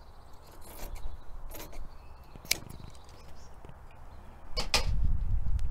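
Scissors snipping through thin fabric, a few separate short snips, then a loud low rumble for the last second or so.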